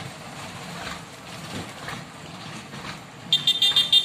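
Truck's diesel engine running low and steady on a muddy dirt road. Near the end a vehicle horn sounds a rapid string of short, high beeps, the loudest sound here.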